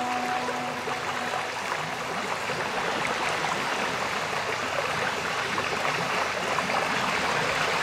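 Water jets of a dancing fountain spraying and falling back into the basin: a steady rushing splash.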